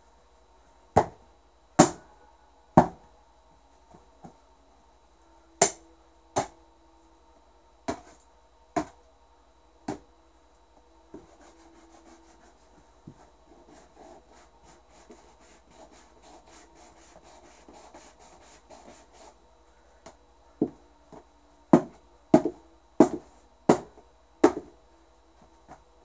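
A bladed hand tool hacking at a leather cowboy boot: about eight hard blows roughly a second apart, then a long stretch of quick rasping strokes of the blade working against the boot, then another quick series of about six hard blows near the end. A faint steady hum runs underneath.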